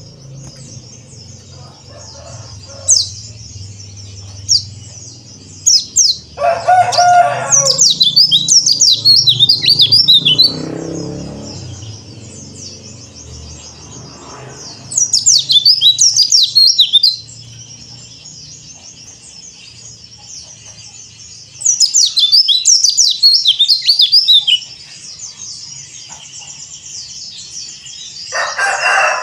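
White-eyes (pleci) singing: three loud runs of fast, sharp, high chirps that fall in pitch, each lasting a few seconds, over a steady high twittering from other birds. A chicken gives a short, lower call about seven seconds in and again at the very end.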